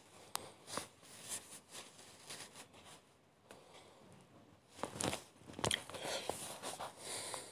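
Handling noise: a series of irregular clicks and rustles close to the microphone, busiest in the second half.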